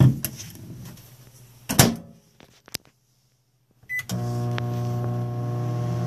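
A 1000-watt microwave oven's door knocks shut about two seconds in; near four seconds a short keypad beep sounds and the oven starts running with a steady hum.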